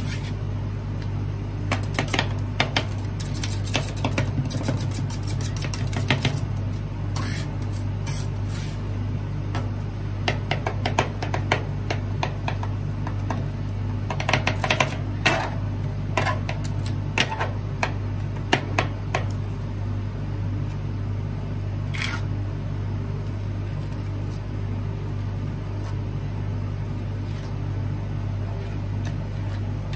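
Metal spatulas chopping and tapping on a steel ice-roll freezing plate as tortilla-chip ice cream is worked, in irregular clusters of sharp clicks for most of the first twenty seconds, then quieter scraping as the mix is spread flat. A steady low hum from the ice roll machine runs underneath.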